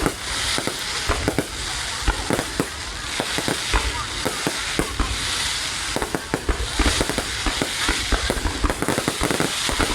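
Aerial fireworks going off in quick succession: many sharp bangs and crackles over a continuous sizzling hiss and low rumble.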